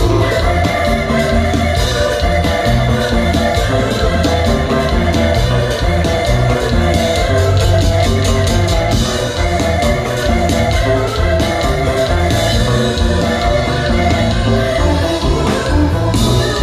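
A live konpa band playing loud, steady dance music with drums and guitar over a strong bass pulse.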